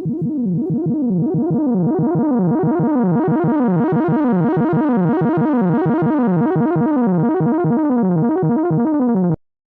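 Background music: quick, repeating rising runs of notes at a steady level, cutting off suddenly near the end.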